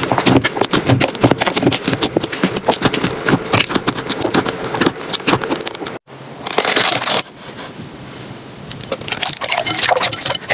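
Slime being squeezed and pressed by hand, a dense run of crackles and small pops. A cut about six seconds in brings a short hissing rush and a quieter stretch before the crackling picks up again.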